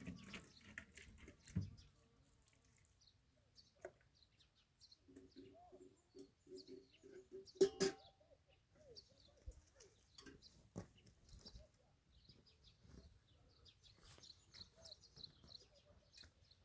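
Faint chirps of small birds, with scattered light clicks and knocks. Around the middle there is a short run of quick low notes and one sharper knock.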